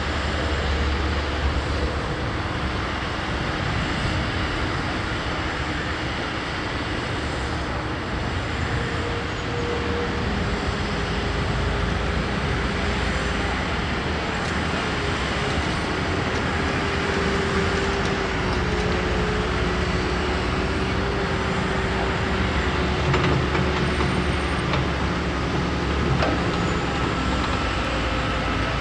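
Liebherr 946 crawler excavator running steadily, its diesel engine and hydraulics humming, with a faint whine that wanders slowly in pitch, against steady road-traffic noise.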